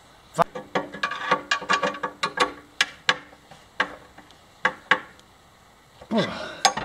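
Irregular metallic clicks and knocks, some ringing briefly, as a metal square-tube brace and its fasteners are handled and fitted to a bandsaw frame. They come thick and fast through the first few seconds, then thin out to a few single taps.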